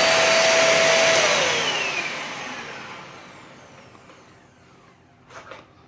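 Vacuum cleaner running with a steady whine, then switched off about a second in: its motor winds down with a falling pitch and the sound fades away over several seconds.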